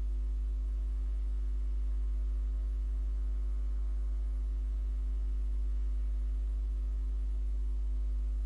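Steady low electrical hum with a few faint steady tones above it, unchanging throughout: mains hum picked up by the recording.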